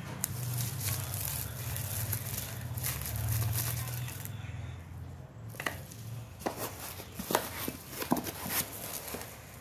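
Clear plastic packaging crinkling and tearing as it is handled and opened, over a low hum. From about halfway through come a series of light clicks and knocks as small makeup items are set down on a hard surface.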